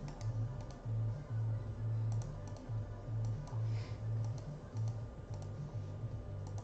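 Scattered clicks of typing on a computer keyboard over background music with a low, pulsing bass.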